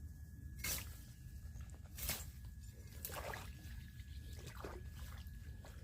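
Water sloshing and splashing in four short bursts, with trickling between, as a fish trap is handled in water.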